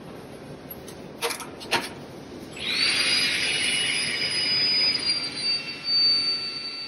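Steel welding test strap ground on a stationary abrasive grinder: a couple of sharp knocks, then from about two and a half seconds in a loud, steady grinding hiss with a thin high whine as the metal is held against the abrasive.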